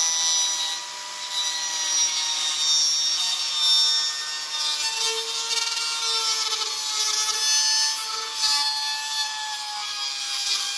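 Angle grinder running with a 3D-printed PLA hexagonal disc, grinding into a printed plastic piece: a steady motor whine under a rasping grind of plastic on plastic. The hexagon's teeth wear away as it cuts.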